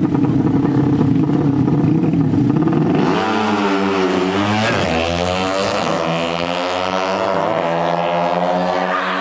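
150 cc drag bikes with horizontal-cylinder 'sleep' engines revving hard. The engine note dips and climbs again between about three and five seconds in, then holds at a steady high pitch.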